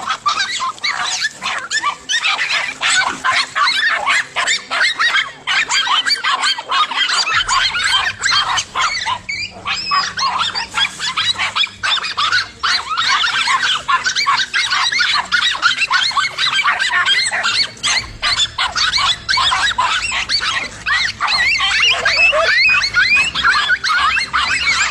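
Several dogs barking and yapping rapidly and without pause, their barks overlapping, agitated at a tegu lizard.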